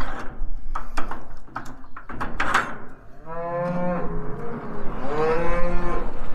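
Cattle mooing twice, each call lasting about a second, after a few sharp knocks in the first seconds.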